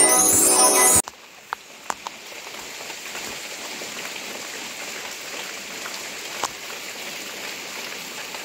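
A chiming intro jingle cuts off abruptly about a second in, giving way to steady rain falling outside: an even hiss with a few sharp taps near the start and one more later on.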